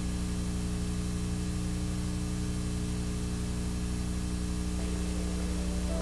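Steady low electrical hum with a hiss of tape static over it, the droning VHS-static ambience of an analog-horror soundtrack. Faint musical tones creep in near the end.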